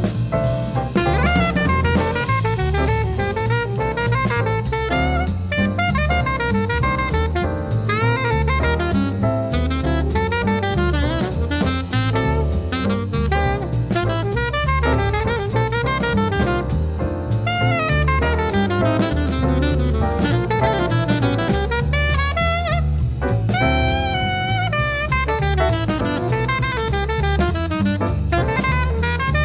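Jazz music: a saxophone playing the melody over a walking bass line and drum kit.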